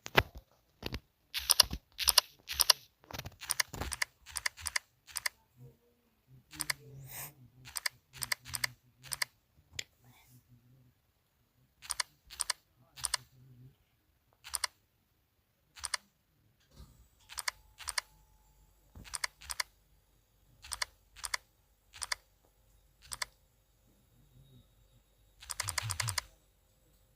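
Mechanical keyboard keys clacking under single presses and short runs of typing, with pauses between. Near the end comes a quick flurry of keystrokes.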